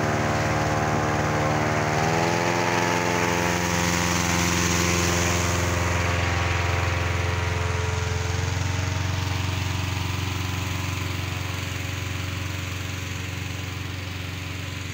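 Petrol-engine inflator fan running steadily, blowing cold air into a hot-air balloon envelope lying on the ground during cold inflation. Its pitch rises about two seconds in, and it grows gradually fainter toward the end.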